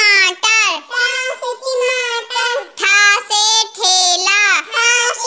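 A child's high voice reciting the Hindi alphabet in a sing-song chant, a letter and then its word, in short phrases, here ṭa se ṭamāṭar (tomato), then ṭha se ṭhelā (cart).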